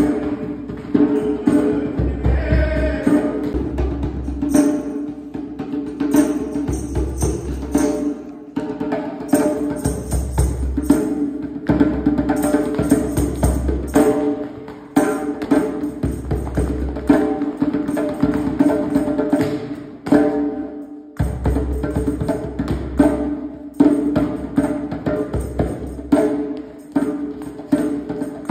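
Music with a busy percussion beat over a steady bass line, dipping out briefly about two-thirds of the way through.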